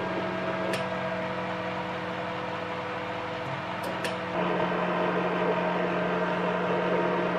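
Steady hum and fan noise from a high-power amateur radio transmitting station, broken by a few sharp clicks. About four seconds in the hum grows louder and rougher as the transmitter is keyed down to tune up the amplifier at high power.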